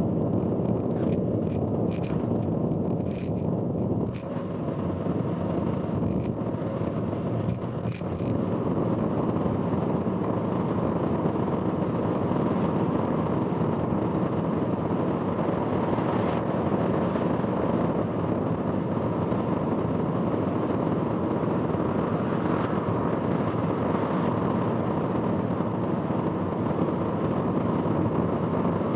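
Steady road and wind noise inside a car travelling on an expressway, with a scatter of sharp clicks in the first eight seconds or so. The uploader warns that this recording carries a loud abnormal noise.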